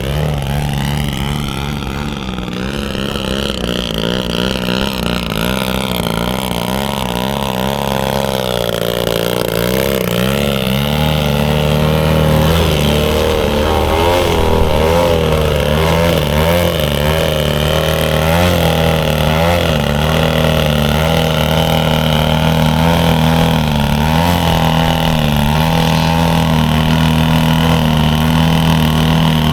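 Engine of a radio-controlled model airplane running through an aerobatic flying display, its pitch wavering, rising and falling as the plane manoeuvres and passes.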